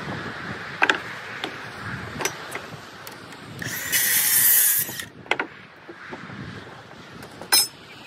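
Circular saw cutting briefly through a rough-sawn board for about a second. A few sharp wooden knocks come before and after the cut.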